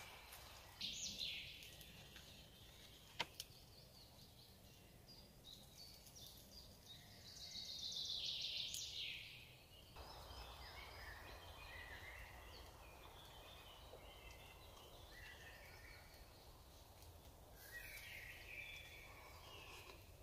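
Near silence: faint woodland ambience with scattered high bird chirps and a brief louder stretch of high sound about eight seconds in.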